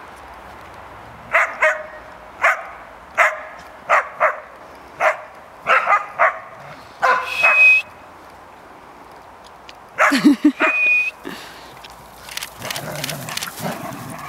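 Dogs at rough play: a run of about a dozen short, sharp barks, the last ending in a brief high squeal. About ten seconds in comes a quick flurry of barks and growls with another high squeal, then low growling near the end.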